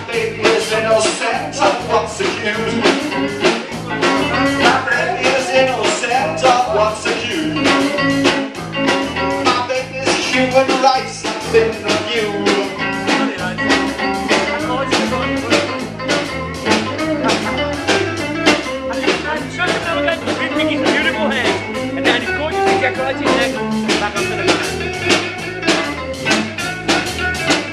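Live band playing: guitars over a steady drum-kit beat, with a voice singing.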